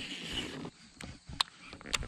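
Baitcasting rod and reel being handled in a kayak: a short hiss, then three sharp clicks, the middle one loudest.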